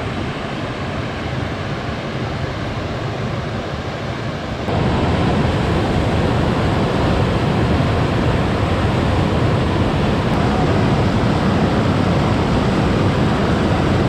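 River rapids: white water rushing steadily over rocks, a continuous hiss and rumble that becomes louder and fuller about five seconds in, then holds steady.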